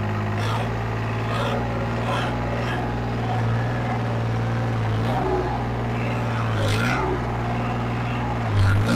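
New Holland 3630 tractor's diesel engine, with a modified fuel injection pump, running steadily under load while pulling a tine cultivator through hard ground in first high gear. The engine note sags and recovers a few times as the load comes on, most strongly near the end.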